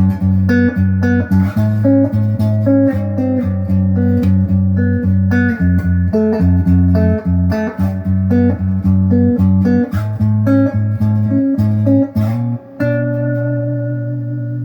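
Les Paul-style electric guitar with its stock pickups, played through an amplifier: a quick riff of picked notes and chords, then a chord struck near the end and left ringing.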